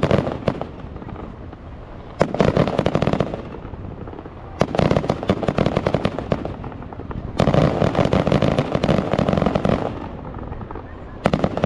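Fireworks going off in repeated crackling bursts, each a rapid run of many pops lasting about one to two seconds, with short gaps between them.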